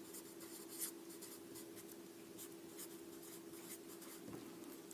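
Felt-tip marker writing on paper: a run of short, faint scratching strokes, over a faint steady hum.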